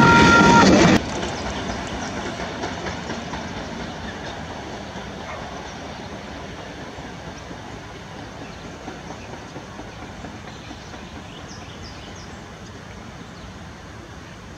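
Heritage passenger train's carriages rolling past close by, loud wheel-on-rail noise with a high steady tone that stops within the first second. After a sudden drop about a second in, the train is heard from afar, fading steadily as it draws away.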